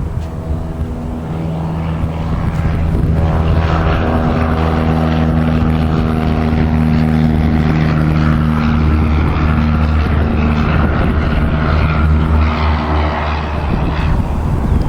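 Piper Cub's small piston engine and propeller droning steadily as the plane flies close by on a touch-and-go, growing louder over the first few seconds.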